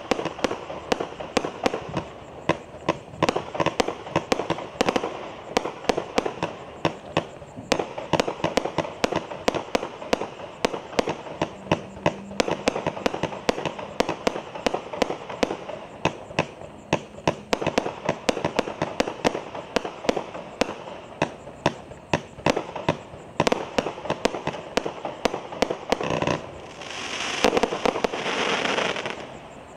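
Agenda 21 firework cake firing a fast, continuous run of shots with crackling breaks, several sharp reports a second. Near the end a heavier shot goes off, followed by a couple of seconds of loud, dense crackling before it stops.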